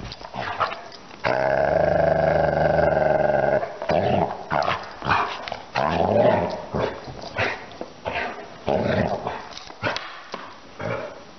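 Basset hound playing and vocalizing: one long drawn-out call about a second in, lasting over two seconds, then a quick string of short barks and growls.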